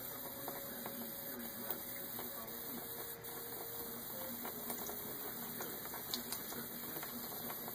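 A thin stream from a bathroom sink faucet trickling into the basin, with a cat lapping at the stream in small scattered clicks, over a faint steady hum.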